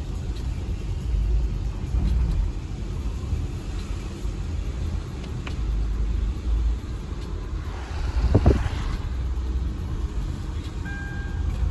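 Car road noise heard from inside a moving car on a wet street: a steady low rumble of engine and tyres, with a brief louder swell about eight seconds in.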